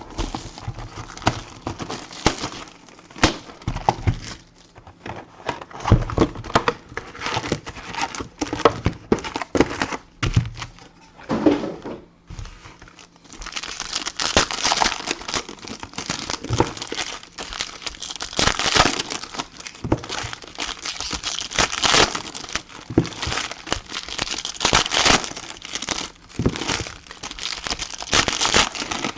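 Trading-card packaging being opened by hand: scattered knocks and clicks of the box being handled, then, about halfway through, continuous crinkling and tearing of the wrapping.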